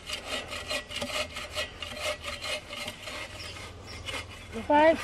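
Bow saw cutting through a log with quick, even rasping back-and-forth strokes, which die away a little after three seconds in.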